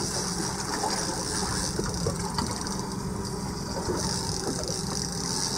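Boat's outboard motor running steadily, a low even hum, with a steady hiss of wind and water over it.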